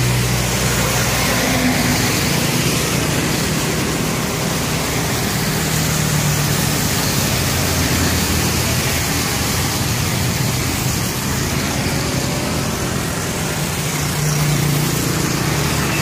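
Road traffic passing on a wet road: cars, trucks and motorbikes, tyres hissing on the wet asphalt over a steady mix of engine noise, with a heavier engine hum passing near the end.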